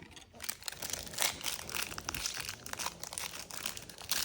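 Plastic trading-card pack wrapper crinkling and cards rustling as they are handled, a dense run of small irregular crackles and rubs.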